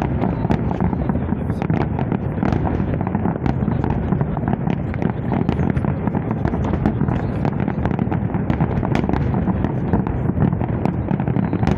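Fireworks salute going off: a dense, continuous run of bangs and crackles, several a second, over a steady rumble.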